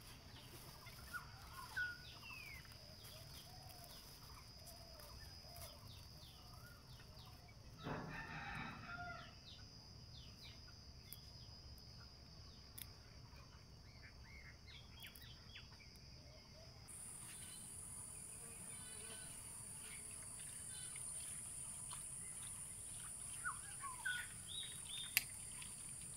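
A rooster crows once, about eight seconds in, over small birds chirping on and off.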